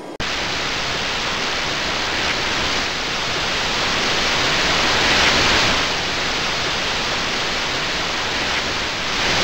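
Loud, steady hiss of static noise that cuts in abruptly just after the start.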